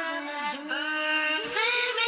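Background music with a sung vocal line, held notes sliding in pitch.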